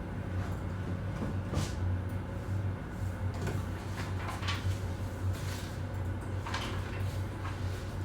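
Office ambience: a steady low hum under scattered short knocks, clicks and rustles, like cupboards, drawers and desk handling.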